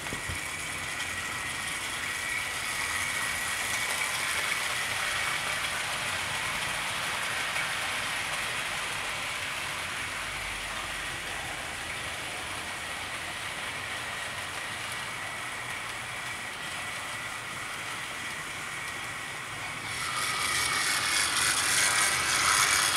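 00 gauge model trains running on a layout: a steady, high electric motor whine over the rattle of wheels on the track. It grows louder about three-quarters of the way through as a locomotive passes close by.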